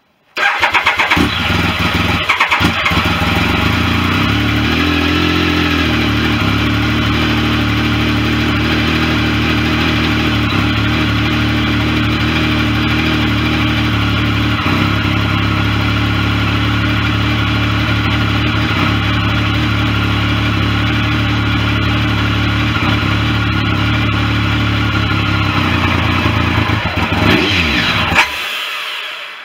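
Triumph 1050 inline three-cylinder motorcycle engine starting abruptly and then idling steadily. The revs rise and fall briefly about five seconds in, and rise again near the end before the engine is switched off.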